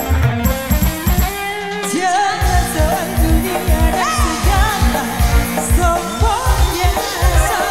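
Live band music played loud through a PA, with a woman singing. The drum and bass beat drops out briefly about two seconds in, then comes back as the sung melody enters.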